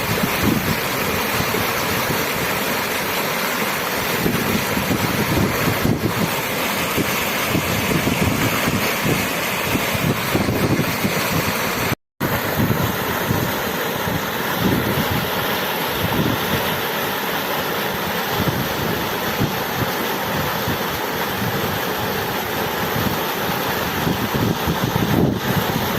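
Steady rushing of running water, a waterfall or stream, an even unbroken roar. It cuts out completely for an instant about twelve seconds in, then carries on unchanged.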